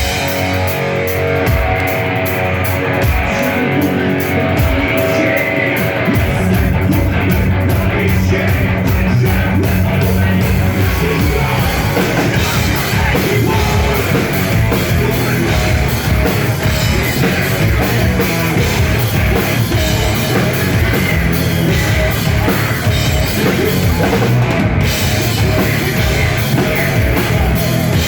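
Heavy rock band playing live at full volume: distorted guitar, bass and drum kit. For the first six seconds the guitar plays with little low end, then bass and drums come in fully.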